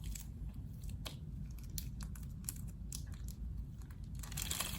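Scattered faint clicks and small handling noises over a low steady hum, then a louder crinkling rustle that starts about four seconds in.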